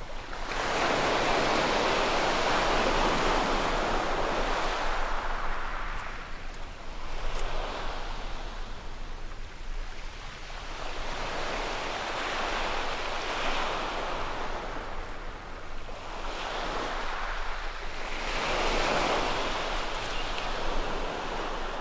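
Waves breaking and washing up a shingle beach, a long wash over the first few seconds, then further surges every five or six seconds.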